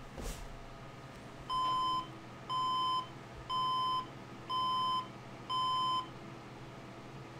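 HP 6000 desktop's motherboard speaker sounding a POST beep code at power-on: five evenly spaced beeps, each about half a second long, one a second, on a steady high tone, after a soft click at the start. Five beeps, by the owner's lookup, point to a memory or motherboard problem.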